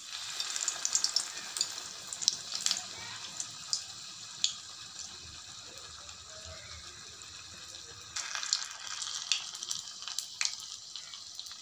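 Semolina vada batter sizzling in hot oil on the back of a ladle, a steady hiss with scattered sharp crackles and pops; the sizzle eases in the middle and picks up again about eight seconds in.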